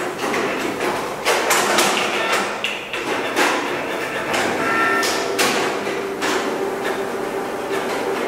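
Several inkjet printers running at once: irregular clicks and knocks of paper feeding and print heads moving, over a steady motor hum, with a brief higher whine about halfway through.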